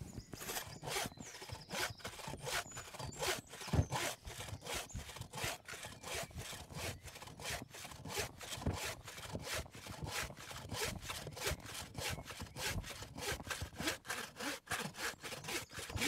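Wooden-framed bow saw cutting through a dry, hard conifer log, the blade rasping back and forth in steady, even strokes at about three a second.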